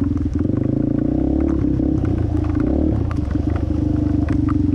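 Yamaha TT-R230's air-cooled four-stroke single-cylinder engine running under way, its revs wavering up and down in the middle as the throttle changes. Scattered short knocks and clatter sound over it.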